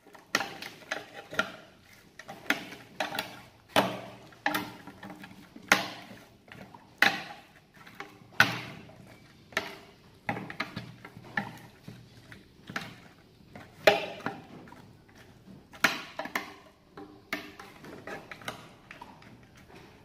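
Chopsticks and a spoon knocking and scraping against a plastic tub while chicken feet are tossed in a sticky chili-satay marinade. The knocks and clicks are irregular, a few a second.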